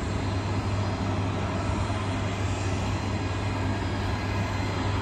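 Steady, even rumble of the KC-135R Stratotanker's CFM56 turbofan engines, with a constant low hum and no rise or fall.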